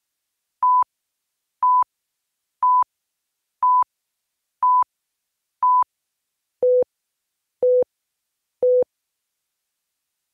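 Countdown leader beeps: short, pure high beeps once a second, the last three an octave lower.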